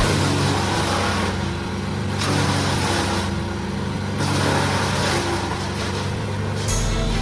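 Vermeer BC1000XL wood chipper running on its diesel engine: a steady engine tone under a rushing noise that swells and fades in waves.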